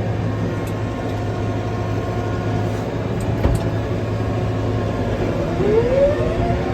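Tractor engine running steadily while a silage bale is fed out. A single knock comes about three and a half seconds in, and a whine rises in pitch near the end.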